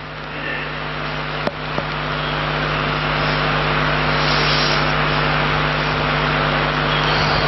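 Steady rushing noise with a low hum, growing louder over the first few seconds and then holding level, with a single click about one and a half seconds in.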